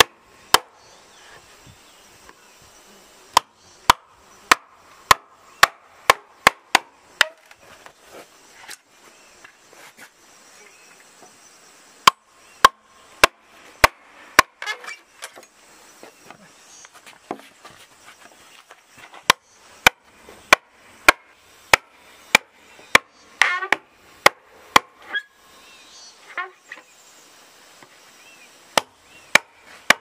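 A wooden club beating the back of a machete blade that is wedged into a green bamboo pole to split it lengthwise. It makes sharp, separate knocks in runs of several strikes at about two a second, with pauses between the runs.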